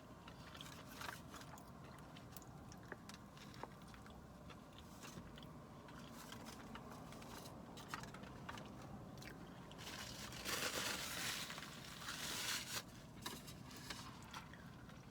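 A person quietly chewing and biting fast food (Chick-fil-A sandwich and waffle fries), with small mouth clicks throughout and two louder crunches about ten and twelve seconds in.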